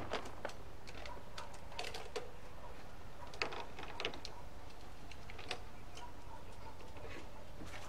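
Foil tape crinkling and crackling in irregular small clicks as it is pressed and smoothed by hand over an opening at the end of a steel gas tank.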